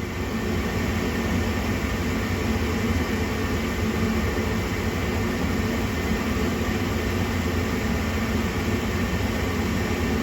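Gas furnace running steadily during its start-up sequence: a constant fan-like rush with a low hum.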